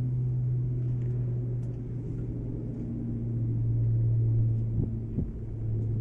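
Concrete mixer truck's diesel engine idling with a steady low drone, with two light knocks near the end.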